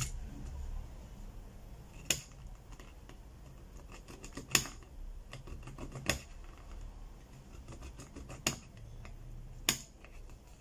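A metal spudger and a plastic pry tool scraping and clicking against a smartphone's metal mid-frame as old display adhesive is scraped off. There is a sharp click every second or two over faint, fine scratching.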